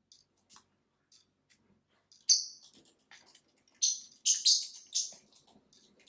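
Lovebird giving sharp, high-pitched chirps: one about two seconds in, then a quick run of several more a second and a half later. Faint scattered clicks come between the calls.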